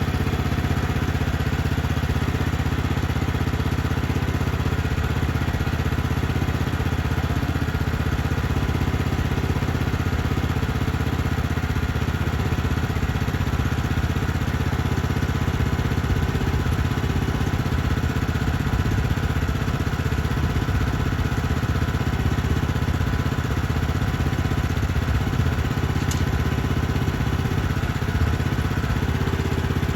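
Sawmill engine running steadily at an even speed, with no change in pitch or load.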